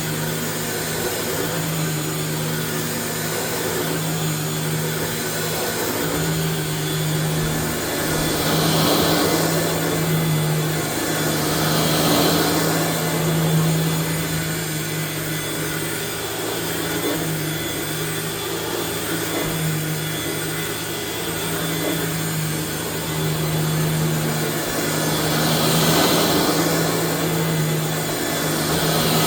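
1994 Dirt Devil Broom Vac model 712 running steadily, a motor hum with an airy hiss that swells several times.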